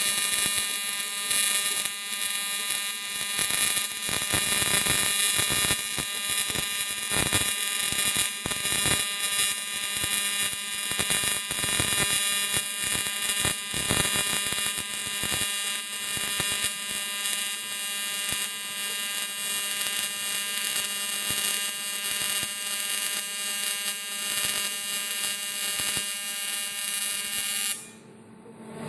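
AC TIG welding arc on aluminium from a FREE PROTIG AC/DC inverter welder: a steady high-pitched buzz with an uneven crackle, cutting off suddenly about a second before the end as the arc is broken.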